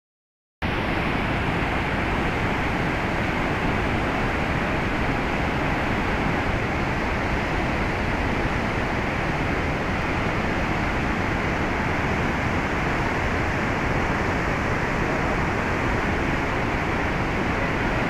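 Steady rushing of a muddy mountain river in spate, its white water churning over rocks and rapids. It starts suddenly about half a second in and holds an even level throughout.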